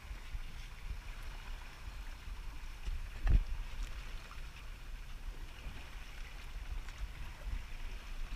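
Water lapping and a low wind rumble on the microphone aboard a fishing boat, with one sharp knock about three seconds in.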